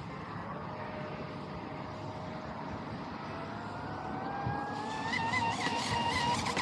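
Brushless electric motor of a Pro Boat Sonicwake V2 RC boat whining across the water. It holds a steady pitch, then winds up smoothly from about halfway through as the throttle opens. Near the end the whine gets louder and warbles, the boat running fast and a little bouncy on its trim tabs.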